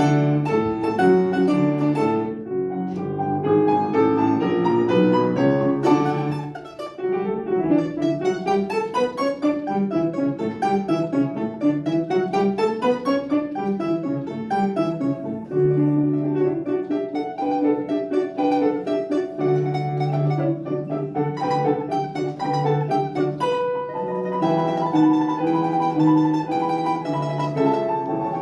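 Live classical instrumental music: a melody with fast rising and falling scale runs over sustained lower notes, dipping briefly about a quarter of the way in.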